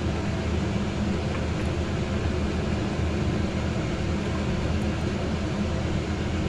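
A steady low rushing drone with an underlying hum, unchanging throughout.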